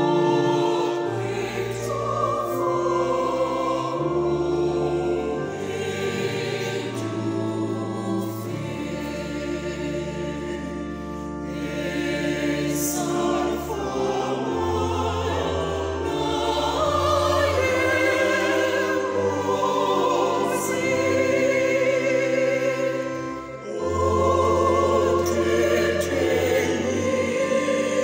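Mixed youth choir singing a hymn from hymnbooks, accompanied by an electronic keyboard holding sustained bass notes under the voices, with a brief breath between phrases near the end.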